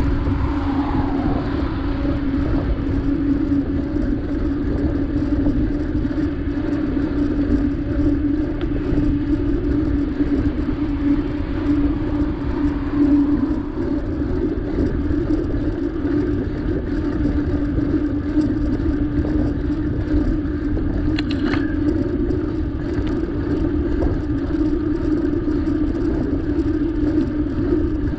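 Steady rumble of wind buffeting and tyre noise on a camera carried on a moving bicycle, with a constant low hum.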